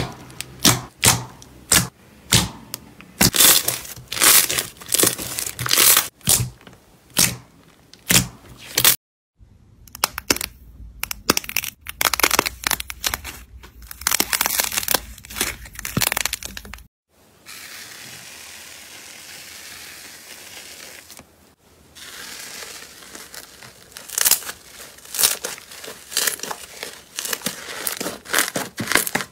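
Slime being poked, squeezed and kneaded by hand: runs of sharp wet clicks and pops as air pockets burst, with a stretch of steady crackling hiss in the middle and a denser crackle near the end as textured blue slime is pressed in a tub.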